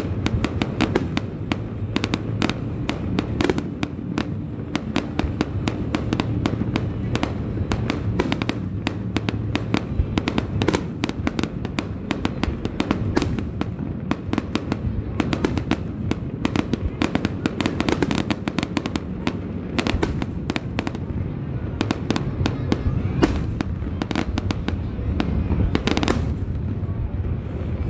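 Aerial fireworks display: a rapid, unbroken barrage of bangs and crackles from bursting shells over a steady low rumble.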